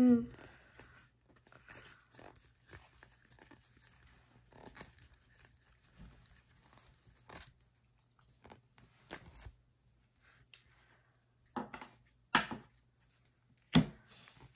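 A stack of 2023 Score football trading cards flipped through and sorted by hand: light papery sliding and flicks of card on card, with a few sharper snaps near the end. A short loud pitched sound comes right at the start.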